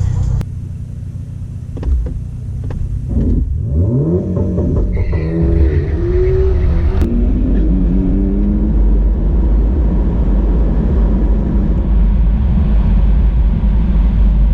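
Car accelerating hard down a drag strip: a pitched note climbs in steps from about four seconds in, then gives way to a steady loud rush of road and wind noise at speed.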